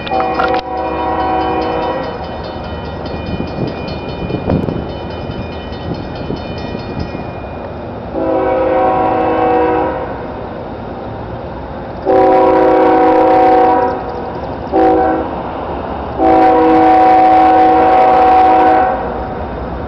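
Air horn of an approaching CSX freight locomotive sounding the grade-crossing signal: long, long, short, long, after an earlier blast that ends about two seconds in. This is the standard warning for a level crossing ahead.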